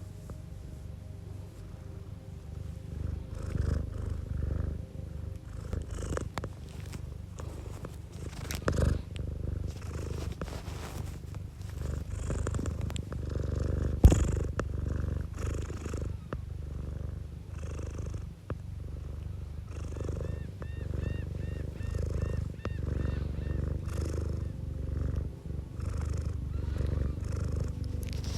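Domestic cat purring close to the microphone, a steady low pulsing rumble. A sharp knock about 14 seconds in stands out as the loudest sound, and a short run of faint high chirps comes in around 20 seconds.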